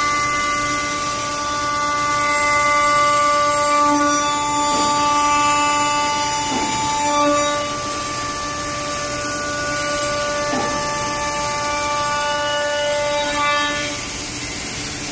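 Automatic CNC wood turning and milling machine running, a steady whine of several tones from its spindle motors over the noise of cutting wood. Some of the tones shift in strength a few times along the way.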